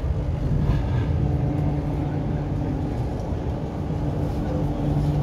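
MTR Q-Train running, heard from inside the passenger car: a steady low rumble with a steady hum over it.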